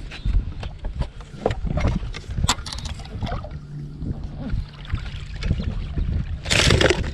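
Noise on a bass fishing boat while a hooked bass is played in: low wind rumble with scattered knocks and clicks, a low steady hum through the middle, and a loud rushing burst about six and a half seconds in.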